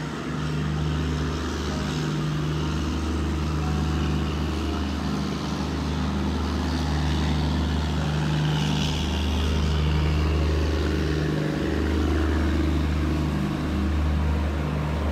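Steady low mechanical hum from the machinery of a standing passenger train. The drone breaks off briefly and resumes every second or two, with a faint hiss above it.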